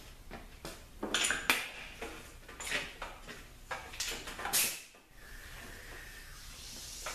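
Off-camera workshop handling sounds: a string of short knocks, clatters and scrapes, then a steady faint hiss from about five seconds in.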